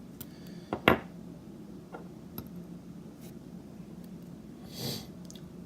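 Small handling noises: a sharp click just before a second in and a few fainter ticks, then a short breath-like hiss near the end, over a steady low hum.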